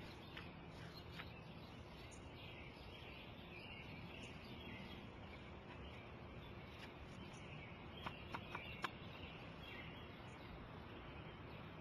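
Quiet garden ambience with small birds chirping faintly in the background, and four short ticks in quick succession about eight seconds in.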